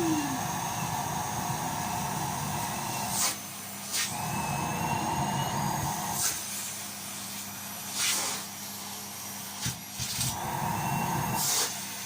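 Vacuum cleaner running with a steady motor hum, broken by several short whooshing surges every second or two.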